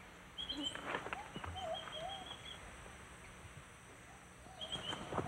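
Rainforest birds calling: a quick series of short high chirps and a lower two-note warbling call. A few soft scrapes come between half a second and a second in.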